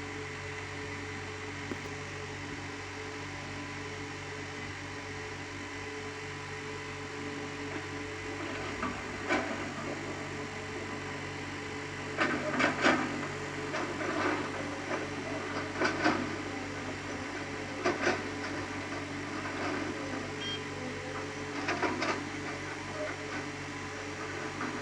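Excavator running steadily with a constant machine hum. From about nine seconds in, a series of short, loud scraping and clanking noises come every second or two.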